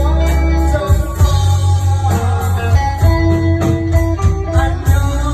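Man singing a Vietnamese pop song into a microphone over a live band with guitar, heavy bass and a steady beat, amplified through PA speakers.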